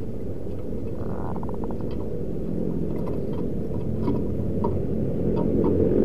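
A steady low rumble throughout, with a zebra dove's short cooing phrase, a soft note breaking into a quick run of pulses, about a second in, and a few faint chirps near the end.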